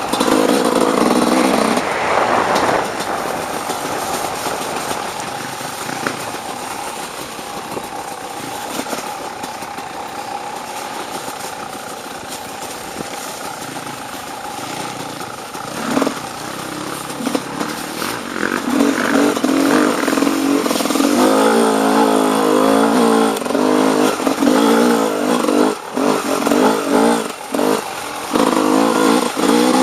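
Off-road dirt bike engine, loud at first, then running lower and steadier for a long stretch, and revving up and down hard from about halfway on, with a couple of quick drops off the throttle near the end.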